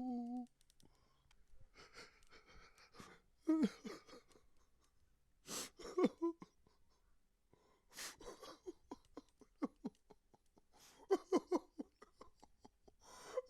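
A man crying without words: shaky breaths and sharp gasping inhales, broken by short, quiet whimpers with pauses between them.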